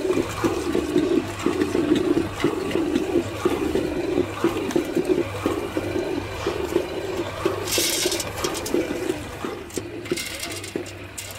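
Electric stone mill running, a steady low hum under a churning, sloshing noise as the grinding stone turns roasted kernels into a runny brown paste. Near the end a brief rattle comes as kernels are tipped from a basket into the mill's steel hopper.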